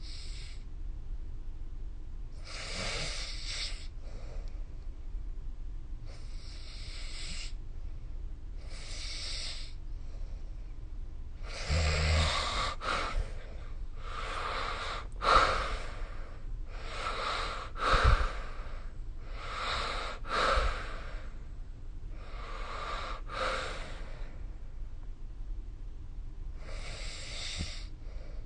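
A sleeping person snoring: about ten rough, noisy breaths, each about a second long, coming every two to three seconds. They bunch closer and grow louder in the middle, where a few sudden sharp peaks stand out.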